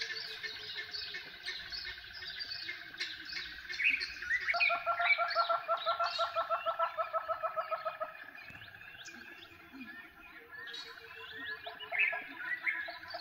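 Wild birds calling over one another in the bush, with many chirps and trills. About four and a half seconds in, a loud, rapid cackling call of about five notes a second starts up and runs for roughly three and a half seconds. It comes back near the end.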